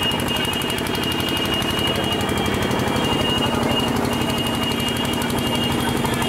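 Fast, continuous rattling of a cycle rickshaw jolting along a rough street, heard from on board, over the din of a crowded market street. A thin, steady high tone runs through it, breaking off now and then.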